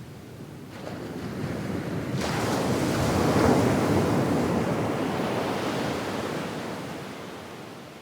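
A single medium wave on a sandy beach: the water builds about a second in, breaks with a sudden hiss about two seconds in, then washes up the sand and slowly fades.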